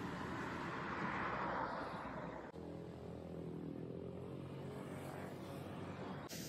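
City street traffic: a vehicle passing, its noise swelling and fading over the first two seconds or so, then, after an abrupt change about two and a half seconds in, a steady hum of engines at an intersection.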